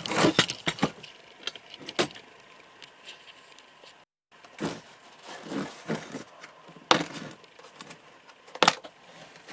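Hands handling a torch box and its contents: scattered clicks, light knocks and rustling as the packaging is opened and items are moved about.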